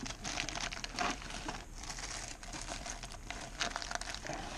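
Plastic packaging crinkling, with small plastic parts clicking, as action-camera accessories are handled and unpacked.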